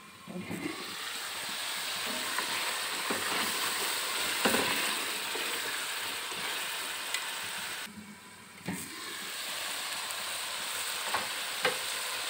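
Chicken in tomato masala sizzling in a metal pot while it is stirred with a wooden spatula, with a few sharp knocks of the spatula against the pot. The sizzle drops away briefly around 8 seconds in, then comes back.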